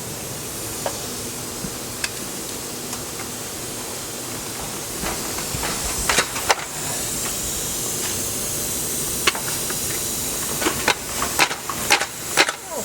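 A steady hiss that grows louder about halfway through, with scattered sharp metallic clicks and knocks, most of them bunched near the end, as tools and parts are worked during a transmission removal.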